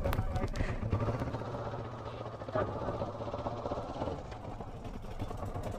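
Kawasaki Versys 650 motorcycle's parallel-twin engine running with a steady low hum, dipping about two seconds in and picking up again just after.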